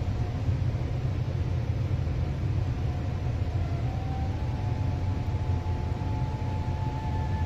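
Steady low rumble, with a few faint, thin steady tones above it.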